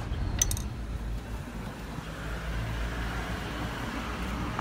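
Steady low road-traffic rumble that swells in the second half, like a vehicle going by. About half a second in, a single sharp metal tap from a screwdriver knocking a circlip onto a scooter clutch plate.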